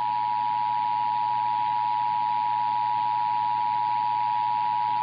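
Emergency Alert System two-tone attention signal, 853 and 960 Hz sounded together, held as one steady unbroken tone over a faint hiss. It is the alert tone of a Required Monthly Test.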